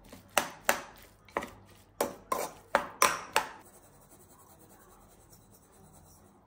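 A plastic spatula knocked against the rim of a speckled enamel pan, about nine sharp taps over three seconds, shaking off chopped onion.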